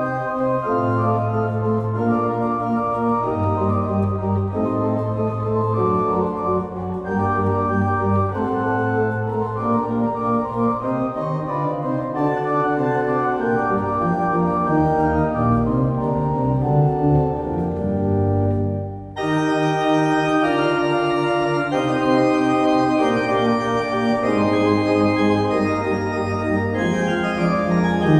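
J.W. Walker & Sons pipe organ playing a Baroque piece, sustained chords on the manuals over a moving bass line of held pedal notes. About two-thirds of the way through, the sound suddenly turns brighter and fuller.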